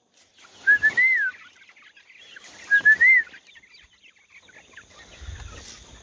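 Chickens clucking in a wire pen. Twice, about two seconds apart, a clear whistled call rings out: two short notes, then a longer note that rises and falls.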